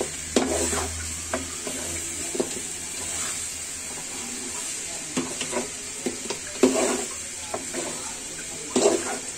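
Metal spoon scraping and knocking against a metal pan as thick chicken-and-potato curry is stirred, in irregular strokes, the loudest a little past the middle and near the end, over a steady high sizzle from the pan. This is the bhuna (koshano) stage, the spiced chicken frying down until the oil separates.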